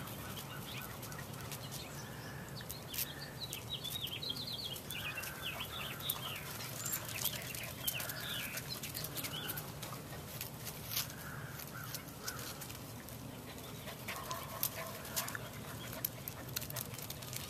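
Puppies yipping and squeaking in play, with a run of quick high squeaks a few seconds in and short yips scattered throughout, among many small sharp clicks.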